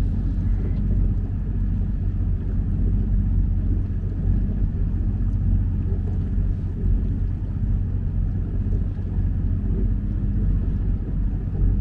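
Canal tour boat's engine running steadily, a low hum with no change in pitch.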